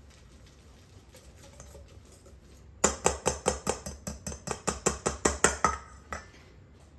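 A utensil beating the egg and parmesan mixture in a bowl: quick, even clinks against the bowl, about five a second, starting about three seconds in and stopping shortly before the end. Faint small clinks come before it.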